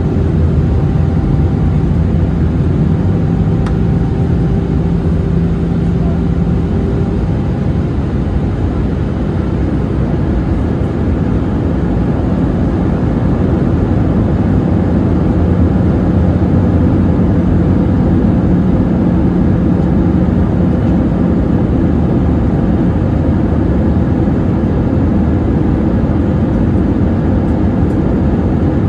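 Steady cabin noise of an Airbus A320-200 in flight: engine hum and airflow rush, heard inside the cabin over the wing. A low hum fades about seven seconds in and returns a few seconds later.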